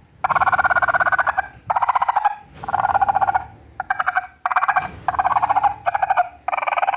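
FoxPro electronic predator caller playing a raccoon pups-in-distress call: repeated bursts of rapid chattering, each lasting under a second or so, with short gaps between.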